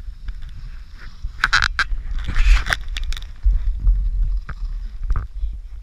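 Skis scraping and skidding over packed snow, with wind rumbling on the action camera's microphone. The loudest stretch of edge hiss comes about two and a half seconds in, with a few sharp knocks around it.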